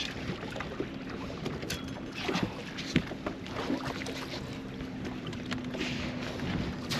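Wind on the microphone and water around a bass boat, with scattered knocks and clicks of handling on the deck while a hooked bass is fought on a rod and reel. A faint steady hum sets in about halfway through.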